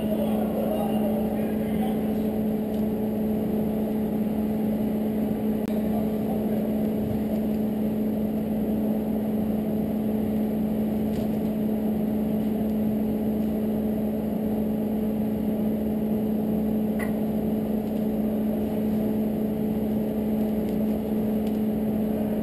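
Steady machine hum with a constant low drone and a fainter tone above it, unchanging throughout; a faint tap about three-quarters of the way through.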